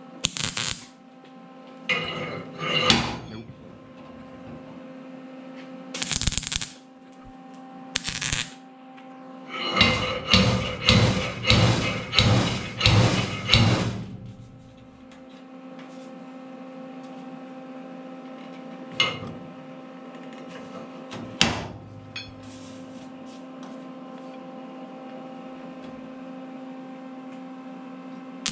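Homemade slide-hammer dent puller knocking on a truck cab's sheet-metal pillar to pull out a small dent: a few single metallic hits, then a quick run of about eight hard blows, roughly two a second, from about ten seconds in, and two more single hits later. A steady hum runs underneath.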